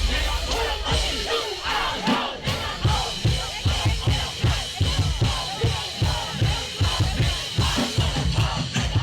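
Loud music with a steady drum beat, about two to three thumps a second, under a crowd yelling.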